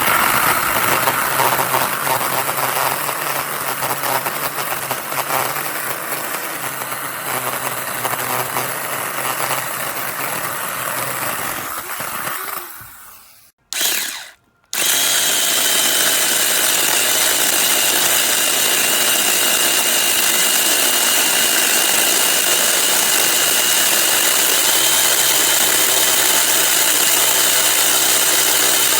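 Uaoaii 6-inch cordless mini chainsaw's electric motor and chain running at speed on an 18V battery. It runs for about thirteen seconds and winds down, gives a brief blip, then runs again steadily until the end.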